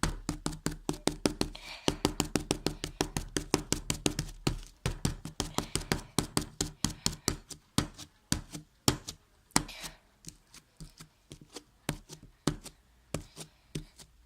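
Homemade white-glue slime being kneaded and squeezed by hand, giving a rapid run of wet clicks and pops, about five a second at first, then slower and irregular.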